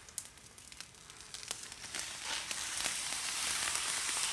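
Protective plastic film being peeled off a PC case's tempered-glass side panel: scattered crackles at first, then a dense crackling hiss from about halfway that grows louder as the film tears away from the glass.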